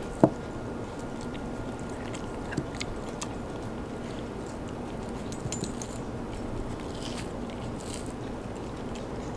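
Belgian Malinois gnawing and chewing a raw beef rib, with scattered small clicks of teeth on meat and bone. One sharp, loud click about a quarter second in stands out above the rest.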